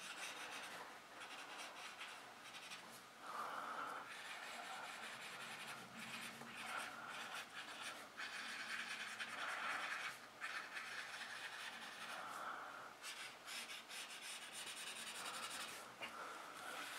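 A drawing tip scratching and rubbing on paper in short, uneven strokes as small circles are drawn and shaded.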